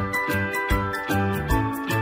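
Background music with a fast, steady beat, about two and a half beats a second.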